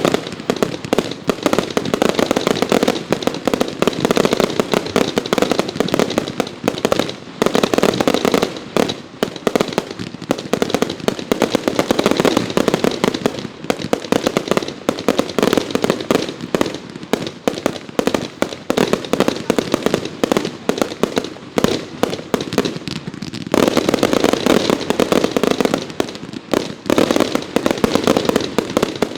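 Consumer fireworks going off in a dense, continuous barrage of rapid bangs and crackles, easing briefly a little after twenty seconds before building again.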